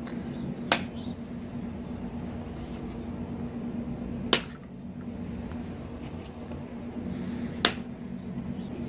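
Raw eggs thrown one at a time and smashing onto a VHS tape lying on concrete: three short, sharp cracks about three and a half seconds apart, over a steady low hum.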